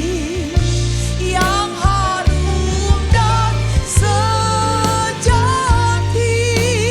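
Worship band music: a singer's voice with vibrato over sustained bass notes and drum hits.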